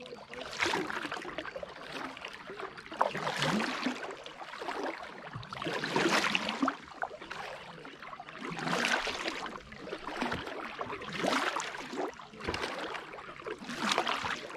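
Kayak paddle strokes in calm water: a double-bladed paddle dipping and pulling on alternate sides, about six strokes in a steady rhythm of roughly one every two and a half seconds, each a swish of splashing and dripping water.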